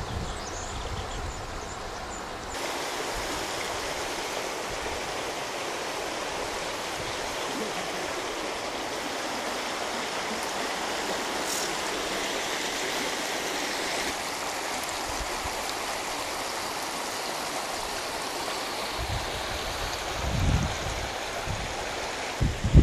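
Shallow, fast stream rushing over rocks: a steady rush of water. A few brief low rumbles come in near the end.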